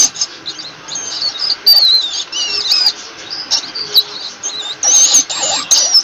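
Rodents squeaking: a run of short, high squeaks that slide up and down in pitch, thickest about two seconds in and again near the end, with a few sharp clicks among them.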